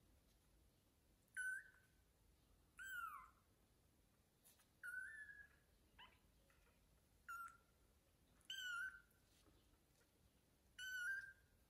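Blind newborn kitten mewing: six short, high-pitched calls spaced a second or two apart, some falling in pitch. These are the calls of a kitten separated from its mother, trying to reach her to be fed.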